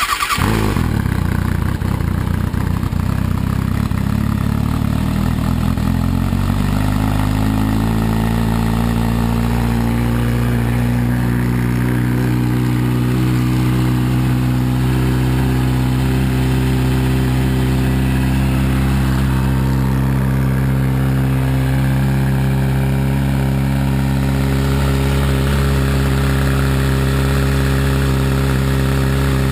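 2012 Kawasaki Ninja ZX-6R's inline-four engine catching and idling through a Competition Werkes slip-on exhaust with the baffle in. Its pitch eases down over the first several seconds as the idle settles, then it runs at a steady idle.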